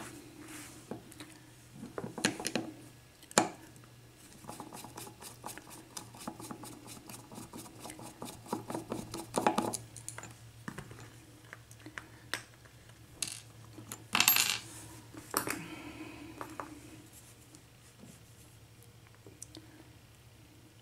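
Small metal lock parts clicking, tapping and clinking as a mortise lock cylinder is taken apart by hand to get at its pins. There are scattered sharp ticks and a couple of louder scraping clatters around the middle and about two-thirds of the way through.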